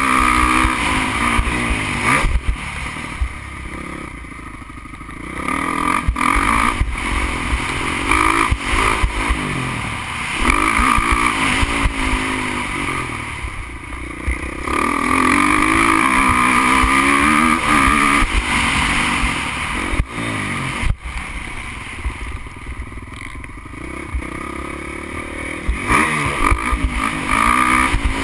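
Motocross bike engine heard from a camera on the bike, revving hard with its pitch climbing and falling as the throttle is worked. It eases off for a couple of seconds about four seconds in and again for several seconds past twenty seconds before pulling hard again.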